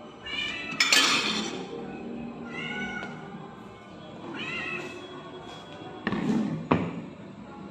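Hungry ginger cat meowing repeatedly, about four short calls, with a loud rough noisy burst about a second in and another near the end ending in a sharp knock.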